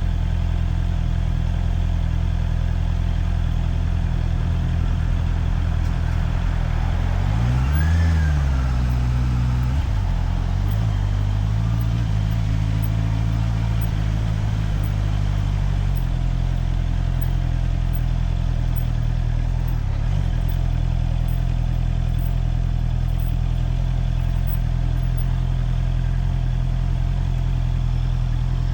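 Motorcycle engine ticking over steadily, with a quick throttle blip that rises and falls about eight seconds in, and a gentler rise and fall in revs a few seconds later.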